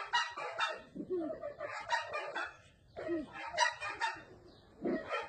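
Calls of the burung merah mata (sempidan), a Sumatran ground bird: a series of short, harsh call bursts, one roughly every half second to a second, some with a falling low note.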